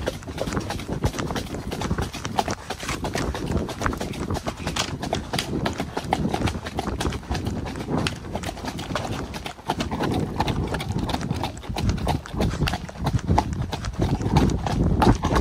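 A ridden horse's hooves striking the ground in a continuous run of hoofbeats.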